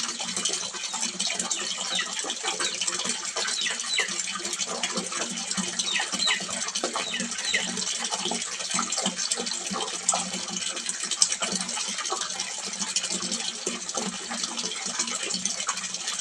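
Water splashing and gushing steadily into a small fish pond, a continuous stream of small splashes with a low steady hum underneath.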